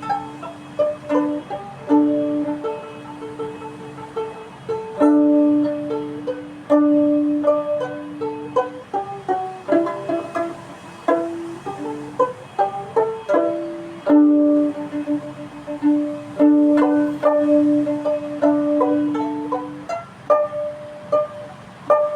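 Solo string instrument music: short plucked notes that fade, over a held low note that keeps returning.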